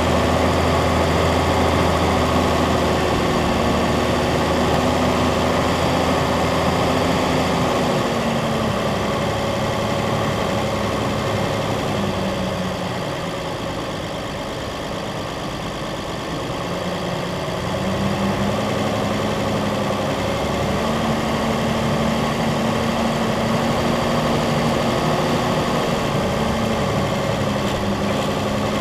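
Vehicle engine running at low speed while driving a sandy track. The engine note drops and softens about a third of the way in, then rises again a few seconds later.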